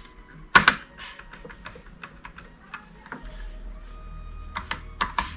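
Sharp clicks and taps of a screwdriver and screws while fastening a CPU cooler down onto the motherboard: one loud click about half a second in, scattered lighter ticks, and a quick run of clicks near the end. A low steady hum comes in about three seconds in.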